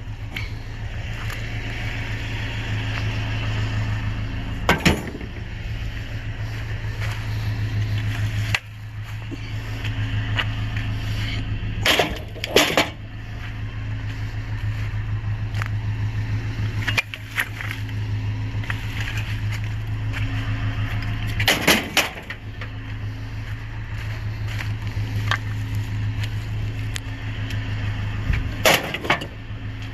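Running vehicle with a steady low drone, broken now and then by sharp knocks and clatters, with a cluster about twelve seconds in and another around twenty-two seconds.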